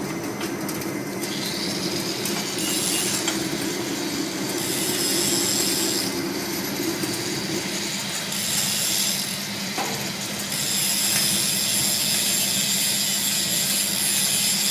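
Industrial sawdust burner running: a steady mechanical rushing with a low hum, its high hiss swelling twice and easing between.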